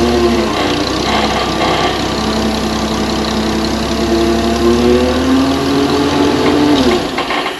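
A vehicle engine idling steadily, its pitch drifting up a little, then stopping abruptly about seven seconds in.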